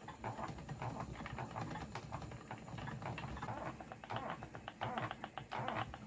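Wooden spinning wheel running as yarn is plied: a steady stream of quick, light clicks and rattles from the turning wheel.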